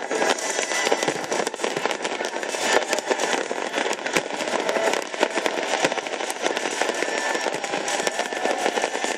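Large aerial fireworks display at full intensity: a dense, continuous barrage of bangs and crackling from many shells bursting at once.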